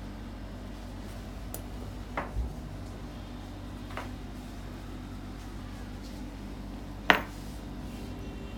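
Scattered light clicks and knocks while a Maltese is handled on a grooming table, the loudest a sharp metallic clink with a brief ring about seven seconds in. A steady low hum runs underneath.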